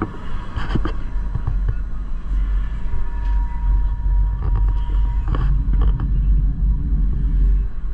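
Gornergrat Bahn electric rack-railway train running, a heavy low rumble with scattered clicks and knocks from the running gear and a faint steady whine in the first few seconds.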